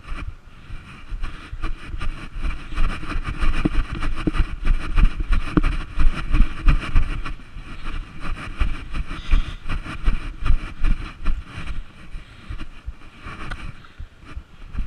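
Wind buffeting the microphone: a loud, uneven low rumble with irregular low thumps, over a steady hiss.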